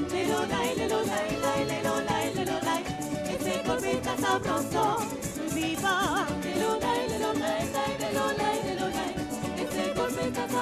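Live parang music: a woman singing with a wavering vibrato over a plucked-string band led by a mandolin, with a steady rattling beat from the percussion.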